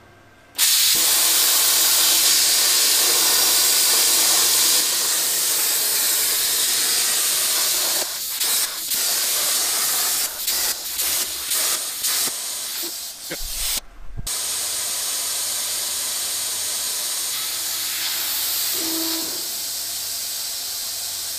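CNC plasma cutting table at work on steel sheet: the plasma torch's hiss of air and arc starts suddenly and loud. It then cuts in and out again and again over several seconds, with a short thump in the middle. After that it carries on as a steadier, slightly quieter hiss.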